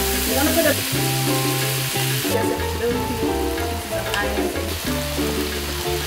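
Chicken and chopped vegetables sizzling in hot sesame oil in a wok as they are stirred, the hiss easing a little about two seconds in. Background music with held bass notes plays throughout.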